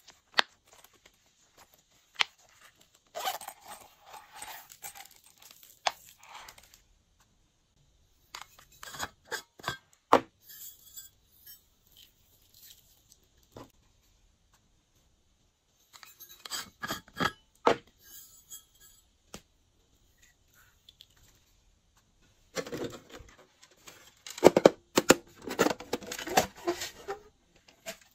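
Dry plastic sequins, sprinkles and confetti toppings shaken out and scattered onto slime, in several separate bursts of rattling and rustling with quiet gaps between.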